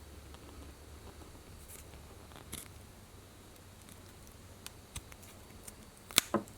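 Small clicks of handling, then one sharp snip about six seconds in as a spark plug wire is cut through with a hand cutting tool.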